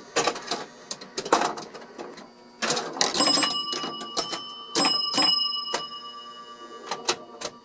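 Bally 4 Million BC electromechanical pinball machine in play: sharp clacks and knocks from flippers, bumpers, relays and score reels. From about three to five and a half seconds in, several hits set off ringing scoring chime tones.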